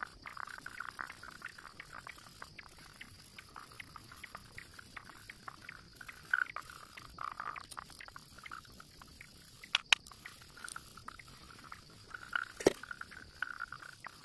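Graphite pencil scratching on paper in quick, short hatching strokes as a beard is shaded in, with two sharp knocks or clicks about ten and twelve and a half seconds in.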